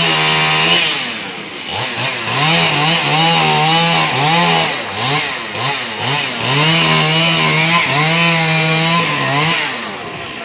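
Chainsaw cutting through a fallen tree trunk. It runs at high revs, and its pitch sags and recovers several times as the chain loads up in the wood. It drops away near the end.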